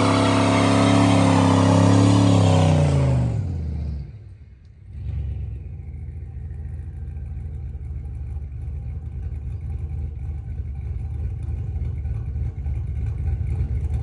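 Chevrolet C10 square-body pickup doing a burnout: the engine is held at high revs with the rear tyre spinning, then the revs fall away about three seconds in. After a brief lull, a low engine rumble runs on and slowly grows louder.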